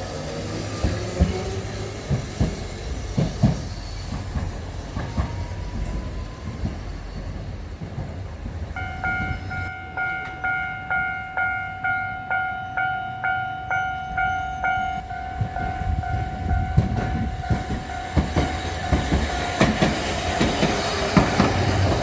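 Level-crossing warning bell striking its 'kan-kan' about twice a second, starting about nine seconds in and fading after about six seconds. Around it, a tram runs over the rails with rumble and knocks, growing louder near the end.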